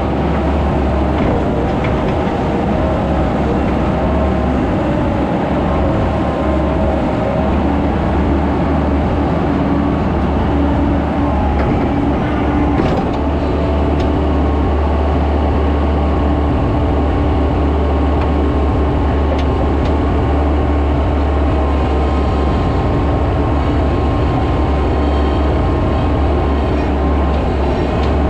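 Skid steer engine running steadily under work, with a constant low drone.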